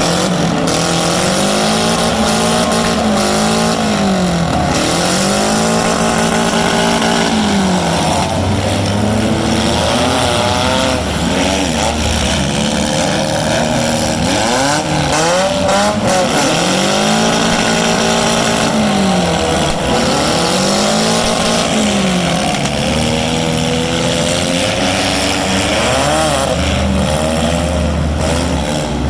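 Several four-cylinder demolition derby car engines revving hard, their pitch rising and falling again and again as the cars accelerate and back off.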